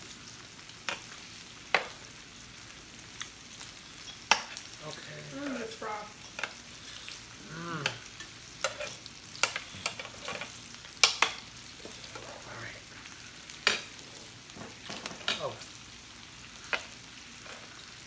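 Meat sizzling steadily on a Korean barbecue grill, with irregular sharp clicks of metal tongs against the grill and pan as food is turned and served.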